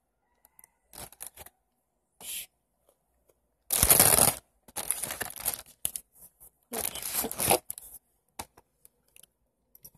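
Crunching bites of a chocolate chip cookie close to the microphone: several short noisy bursts, the loudest about four seconds in.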